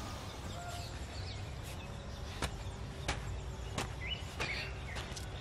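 Hoe blade striking and dragging through loose soil in regular strokes, starting about two seconds in and coming roughly three every two seconds.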